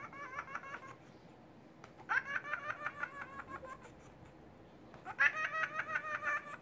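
Tabby cat vocalizing in three short bouts of rapid, stuttering, pulsed cries that sound like laughter, each bout starting with a rising note.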